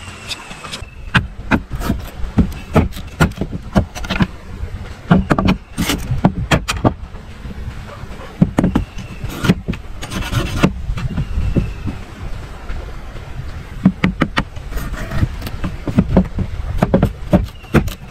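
A machete cutting and splitting thin bamboo sticks on a round wooden block: a run of sharp, irregular knocks, with a short scraping stretch about ten seconds in.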